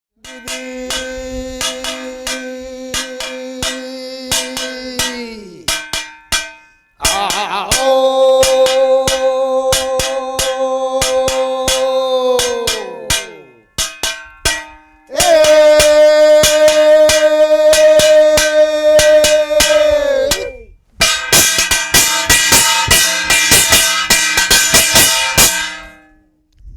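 Korean traditional music: long held melodic notes, each falling away in a downward slide at the end of its phrase, over regular strikes of a percussion instrument. A brighter, louder held passage comes near the end.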